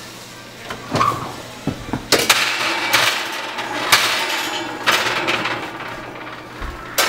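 Kitchen oven door opened with a brief squeak, then a series of metallic clanks and scraping rattles on the wire oven racks as the quenched steel is set inside to temper.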